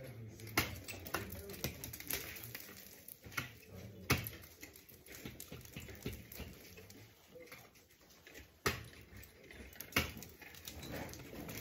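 Ice tools and crampons striking the frozen waterfall ice: irregular sharp knocks, several seconds apart at times, the loudest about four seconds in and near nine seconds.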